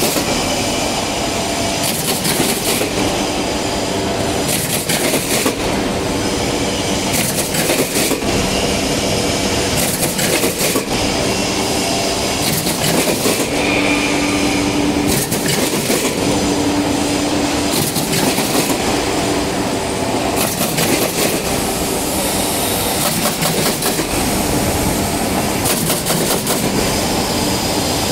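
Automatic corrugated cardboard partition assembly machine running at full production: a continuous dense mechanical clatter, with a higher hissing layer that comes and goes in a regular cycle every couple of seconds.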